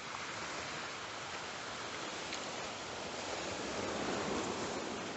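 Steady wash of small sea waves on a shingle beach, a soft even hiss that swells slightly about four seconds in.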